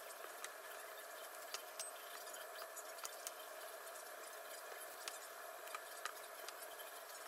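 Faint soft pats and small clicks of a bone-in pork chop being dipped in beaten egg and pressed into a bowl of seasoned flour, over a steady background hum.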